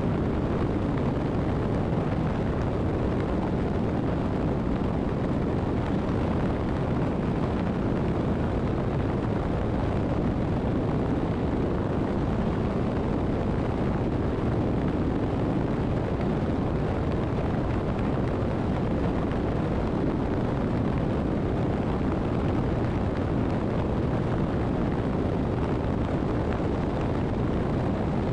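Motorcycle cruising at steady highway speed, heard from a camera on the bike: a constant rush of wind buffeting and road noise, low and unchanging, with no gear changes or speed changes.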